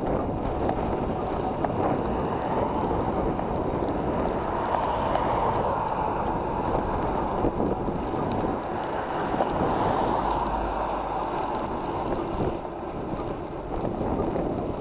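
Steady rushing wind noise on the microphone of a camera moving along a road, with the general rumble of road travel underneath.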